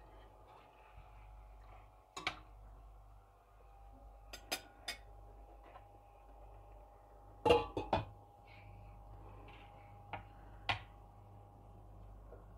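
Scattered clinks and knocks of a metal ladle and a glass lid against a stainless steel saucepan, the loudest double knock about seven and a half seconds in as the lid is set on the pot, over a faint steady hum.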